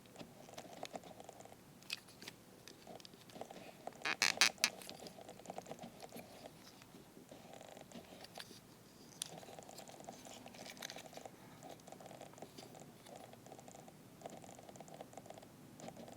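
Close handling of a small plastic toy figure: scattered clicks and taps, with a short loud rattle about four seconds in, over a buzzing that comes and goes in stretches of about a second.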